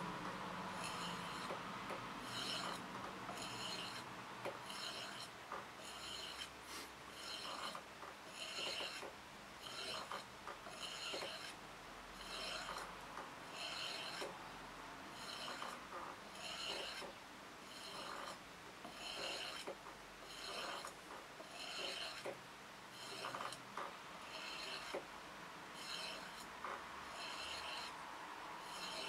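Steel knife blade being hand-sharpened, drawn stroke by stroke along a sharpening bar: an even rhythm of short, ringing scrapes, about one a second.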